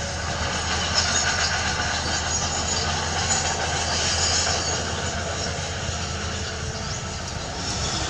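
Heavy diesel machinery at work: a Caterpillar CS533E single-drum soil compactor and a tracked excavator running together. A steady low engine drone with a constant high-pitched metallic noise over it.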